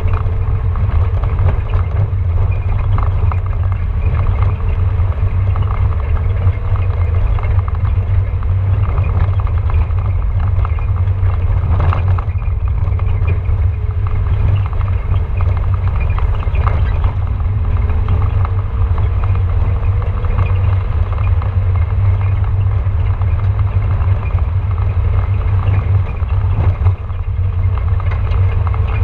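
Off-road vehicle driving slowly over a rough, rutted dirt and gravel track: a steady heavy low rumble of engine, tyres and body, with a single knock about twelve seconds in.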